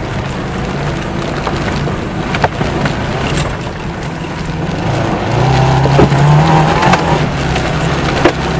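Saab 96's Ford-built V4 engine heard from inside the car, pulling under load up a rough, slippery trial hill, with short knocks and rattles as the car bounces over the track. The engine gets louder about five seconds in, then eases again.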